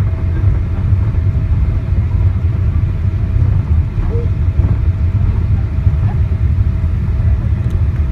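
Steady low rumble heard inside the cabin of a Boeing 777-200ER during its landing rollout: the wheels on the runway and the engines as the airliner slows with its spoilers up. A faint steady tone sits above the rumble.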